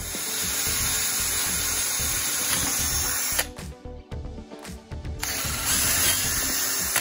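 Ryobi ONE+ cordless drill boring a hole through a wooden board. It runs steadily, stops about three and a half seconds in, and starts again about five seconds in.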